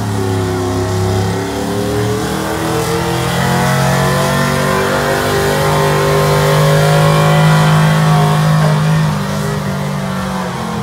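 Pickup truck engine running hard under heavy load as it drags a weight-transfer pulling sled, its pitch climbing slowly as it goes down the track, then dropping off near the end as the pull dies.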